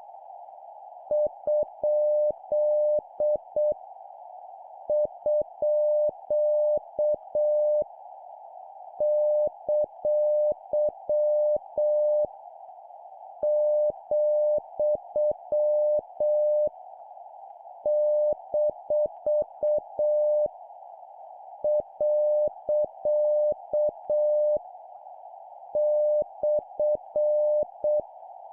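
Morse code (CW) practice tone, a single steady beep keyed on and off at 7 words per minute and sending punctuation marks. Seven characters are heard, each a run of dots and dashes with a clear pause between characters. A steady hiss at about the tone's pitch runs underneath.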